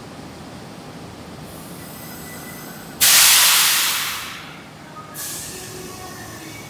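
Sudden loud hiss of compressed air from a stopped electric commuter train's air system, about three seconds in, fading over a second and a half, followed by a shorter, softer hiss about two seconds later, over the steady hum of the standing train.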